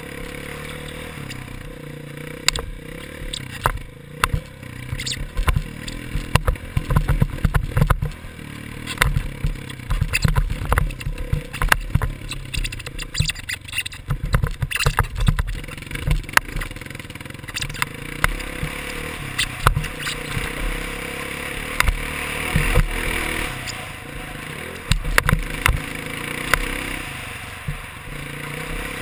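Dirt bike engine running while riding a motocross track, heard from a helmet-mounted camera, with many sharp knocks and clatters from the bumps.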